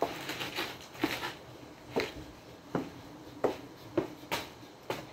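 A person dancing on a concrete floor makes a string of sharp percussive hits from hands and feet, about one every half-second to second, irregularly spaced.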